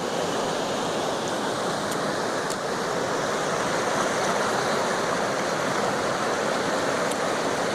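A steady rushing noise, even and unbroken, with a few faint ticks.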